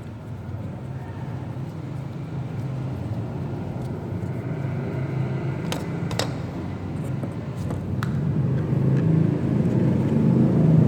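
A motor vehicle's engine rumbling low and growing steadily louder, with a few sharp clicks partway through.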